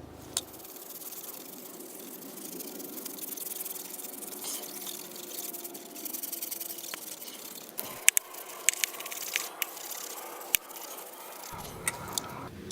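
A brush scrubbing a dirty chainsaw with petrol, a steady rough scrubbing. From about two-thirds of the way in there are sharp clicks and knocks as the saw and tools are handled.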